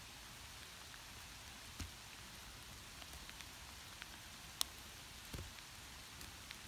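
Hail shower: a steady hiss of small hailstones falling on grass, dotted with scattered sharp ticks and a few louder clicks, the sharpest about four and a half seconds in.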